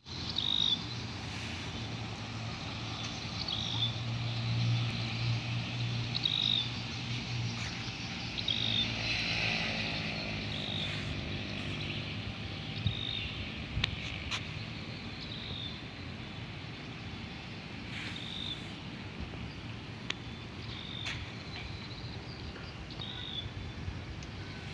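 Outdoor ambience: a low, distant motor hum that is strongest over the first several seconds and fades out about halfway, with a short high chirp repeating every two seconds or so.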